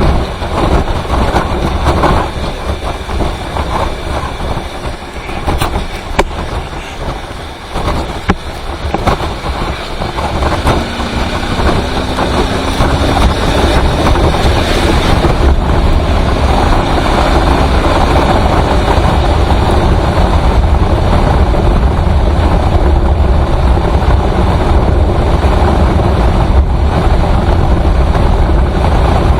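Vehicle travelling on a highway, with steady engine and road noise and a strong low rumble. About ten seconds in, a rising engine tone appears as it picks up speed, and the noise grows louder.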